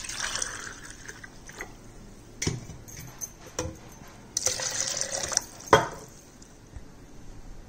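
Water poured from a glass into a plastic mixer-grinder jar onto curd, in separate pours. There are a few sharp knocks between them.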